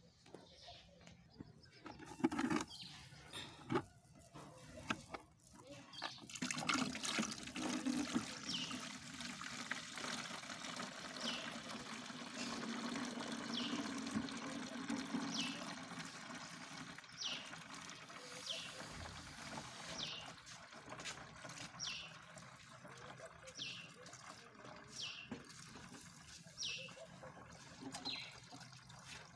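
Homemade liquid bleach trickling through a sieve into a plastic basin, a steady pouring wash that is heaviest in the first half. A few knocks come in the first seconds, and a short high falling chirp repeats about every second and a half over the trickle.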